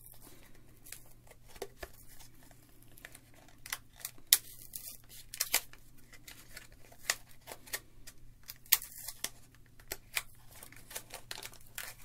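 Product packaging being torn open and crinkled: irregular crackling with sharp snaps, a few of them much louder than the rest.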